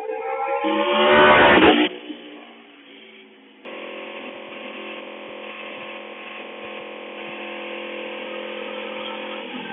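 Aprilia Tuono V4 Factory's V4 engine through an SC Project exhaust, loud and accelerating with a rising note for about two seconds, then cutting off sharply. After a quieter moment it runs at a steady, even note while riding alongside.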